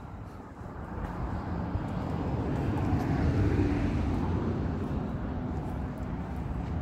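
A vehicle passing by: a low rumble that swells over about three seconds and then slowly fades.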